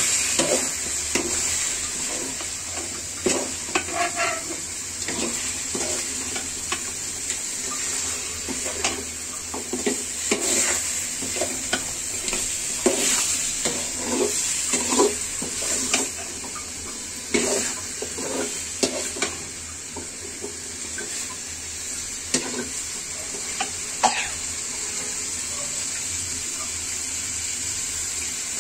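Steel spoon scraping and knocking against a metal karahi as chicken pieces are stirred and browned in spiced oil, with steady sizzling of the frying underneath. The spoon strokes come irregularly and thin out near the end.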